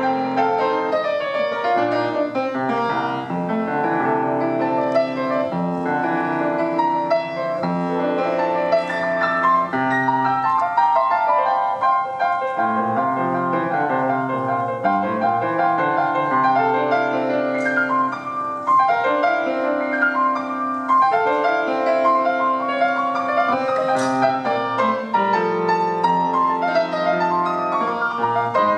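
Solo grand piano played continuously: an Argentine gato, a folk dance piece, with many quick notes and chords.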